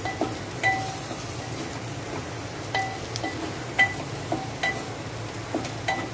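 Wooden spatula stirring chopped onion frying in a metal pot, knocking against the pot's sides in irregular light clinks that each ring briefly, over a soft steady sizzle.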